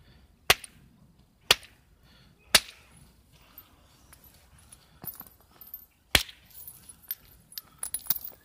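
Flintknapping: stone held in a leather pad being worked with a hand tool, giving sharp clicks as flakes come off. Four loud clicks about a second apart at first, then lighter clicks and a quick cluster near the end.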